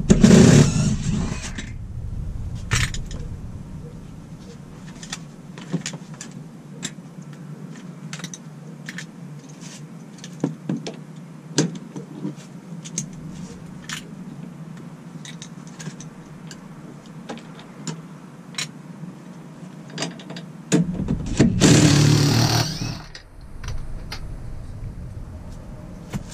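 Cordless impact driver with a 15 mm socket running in two short bursts, one at the start and one about 21 seconds in, undoing the rear bolts of a car's front passenger seat. Between the bursts come scattered light clicks and knocks.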